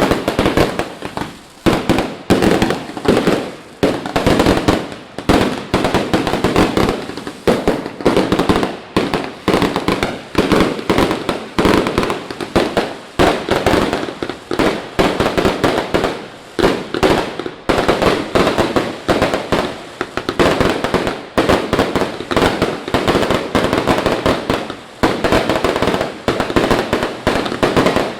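Fireworks display going off: a dense barrage of bangs, several a second, overlapping without a break.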